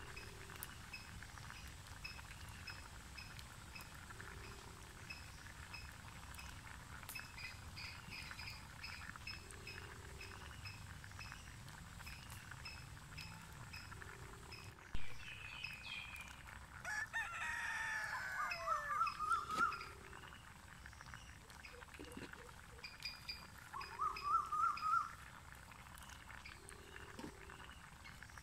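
A rooster crows, a long crow past the middle and a shorter one near the end, over a faint background of high chirps repeating about twice a second.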